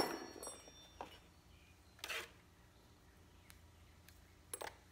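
A hard plastic Milwaukee hole saw kit case handled on a carpeted workbench: a sharp knock at the start as it is set down, a short rattling rustle about two seconds in as it is opened, and a quick double click near the end.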